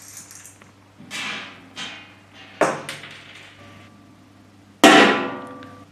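A metal spoon strikes an upturned stainless-steel pan once near the end, a loud clang that rings and fades. Before it come a few lighter knocks and clinks from handling the pan setup.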